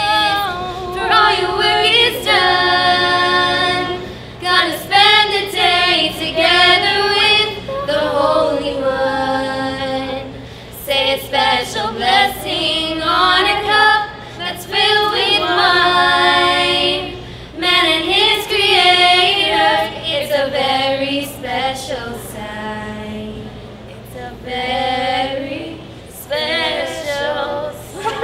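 A small group of girls and a woman singing a Shabbos song together a cappella, with no instruments.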